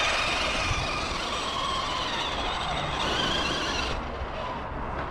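Electric motor of an Arrma Big Rock 3S RC monster truck whining under throttle, the pitch rising and falling with the throttle, cutting off about four seconds in.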